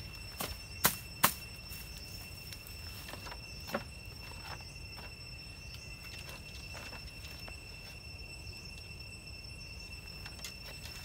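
Steady high-pitched insect drone, with a few sharp knocks: two loud ones about a second in and a fainter one near four seconds, then only weak taps.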